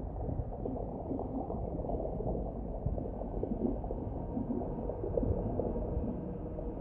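Underwater ambience: a steady, low, muffled rush of water dotted with many small bubbling and gurgling blips.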